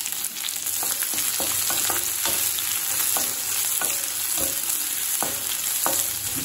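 Sliced onions sizzling in hot oil in a kadai, with a steady hiss, as a spatula stirs them and scrapes and knocks against the pan about every half second to one second.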